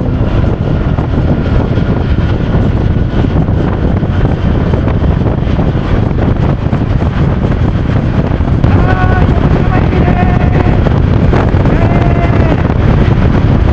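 Rushing wind buffeting the helmet microphone while riding a motorcycle, with the engine and road noise running steadily underneath.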